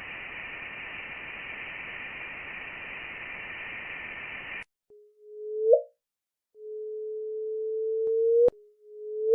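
Steady static-like hiss with a brighter high band that cuts off suddenly about halfway through. It is followed by three electronic-sounding single tones at one low-middle pitch, each swelling in loudness and bending upward before stopping abruptly with a click.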